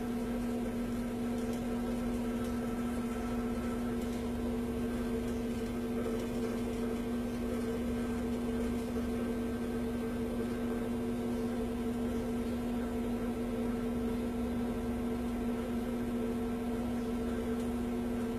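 Steady mechanical hum at one constant pitch over an even hiss, unchanging throughout, with no blast or impact.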